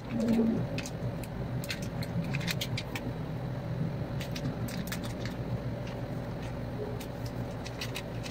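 Paper seasoning sachet crinkling with scattered small crackles as it is torn open and handled, with a brief louder sound about half a second in. A steady low hum runs underneath.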